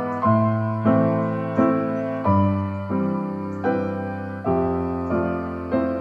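Background piano music: slow notes and chords struck about every three-quarters of a second, each left to ring and fade.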